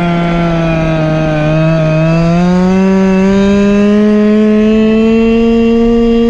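Go-Ped scooter's small two-stroke engine running under way. Its pitch sags slightly about a second and a half in, then climbs steadily as the scooter picks up speed.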